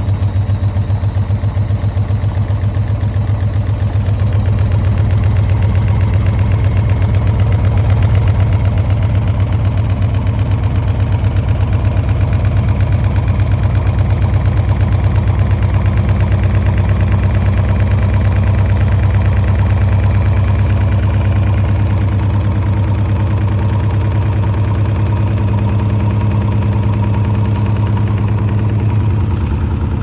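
Beko front-loading washing machine on a high-speed spin with an unbalanced load: a loud, steady deep hum from the drum and motor that pulses rapidly, with a faint high motor whine creeping slowly up in pitch.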